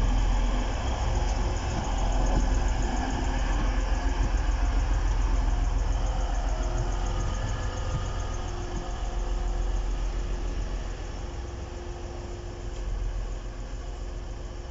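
Two coupled Class 185 diesel multiple units passing slowly, their Cummins diesel engines running with a steady low rumble that eases off a little toward the end as the train draws away.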